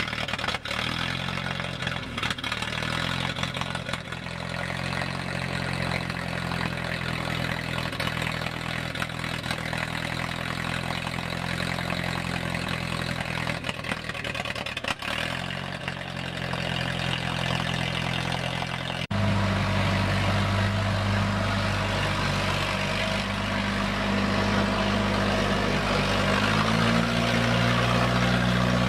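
1933 Fordson Standard N tractor's four-cylinder engine running at a steady idle, then, after a sudden change about 19 seconds in, running louder as the tractor is driven, stepping up a little in pitch near the end.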